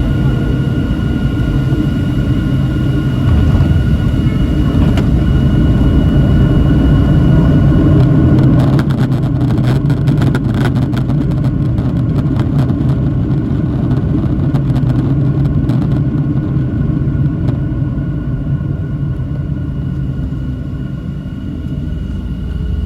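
Cabin noise aboard a Boeing 737-700 during its landing: the CFM56-7B engines' steady low rumble with a steady high whine, a run of rattles and knocks around the middle, and the noise slowly easing toward the end.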